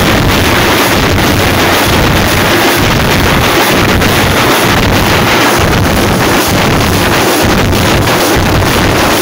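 A troupe of thappu (parai) frame drums beaten hard with sticks in continuous group drumming, so loud that the recording is overloaded into a dense, unbroken distorted noise.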